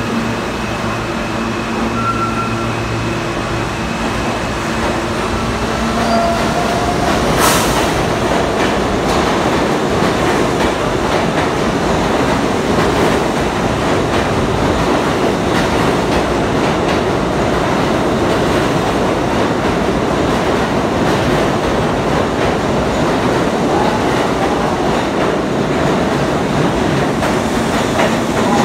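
R68A subway train pulling out of the station. A steady hum at first, then from about six seconds in the running noise of wheels on rail builds into a steady rumble as the cars pass and move off.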